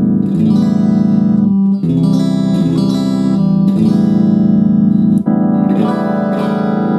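Guitar chords strummed and left to ring, with a new chord about every one and a half to two seconds.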